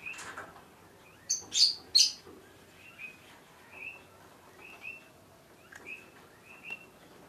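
A bird chirping over and over, in short chirps about once a second. Three loud, sharp high sounds come close together about one and a half to two seconds in.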